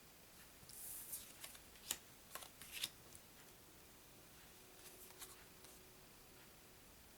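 Thin glossy game cards being handled: a brief slide about a second in, then a few light clicks and taps, with softer ones later.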